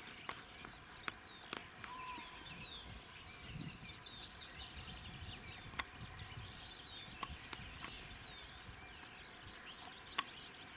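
Faint chorus of many small birds chirping and trilling, with a handful of sharp, brief clicks scattered through.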